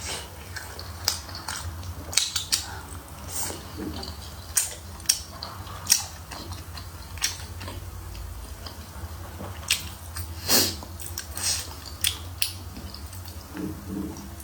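Close-miked eating sounds: irregular wet clicks, smacks and bites of a person chewing food, with a few sharper clicks like utensils touching, over a steady low hum.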